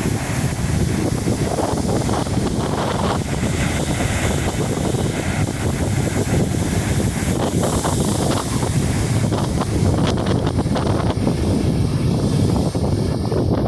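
Strong wind buffeting the microphone, with the wash of ocean surf beneath it.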